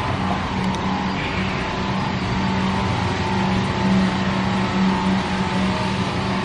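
Steady rumbling noise with a low, even hum underneath, holding level throughout.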